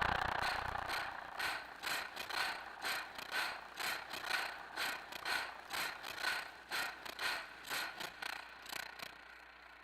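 Rhythmic mechanical clicking, a little more than two clicks a second, getting fainter toward the end before it stops.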